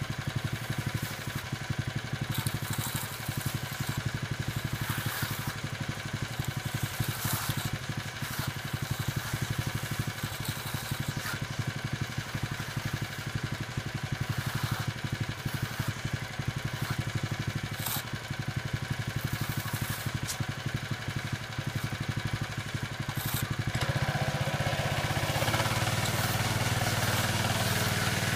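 Walk-behind petrol power trowel (helicopter trowel) running steadily while burnishing a concrete slab, with a few light clicks. The engine grows louder near the end.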